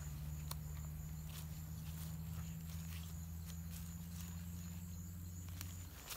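Bare feet stepping through wet mud and grass, faint soft steps about once a second. A steady low hum runs beneath and stops just before the end, and a thin high steady tone sits above.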